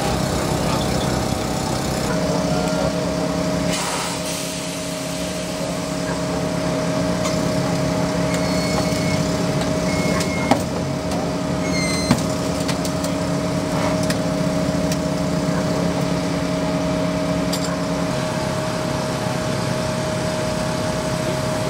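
Steady engine drone with a constant humming tone, from the running fire apparatus and the hydraulic power unit that drives the rescue tools (Jaws of Life) cutting into a crashed sedan. Two sharp cracks come about a second and a half apart midway.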